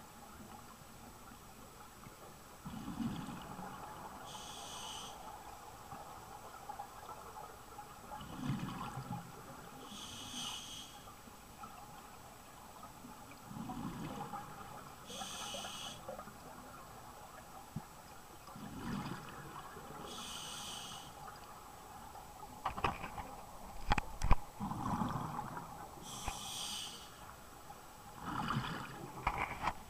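Scuba diver breathing through a regulator underwater. Slow, even breaths come about every five and a half seconds, each a low bubbling rush followed by a higher hiss. A cluster of sharp knocks falls about three-quarters of the way through.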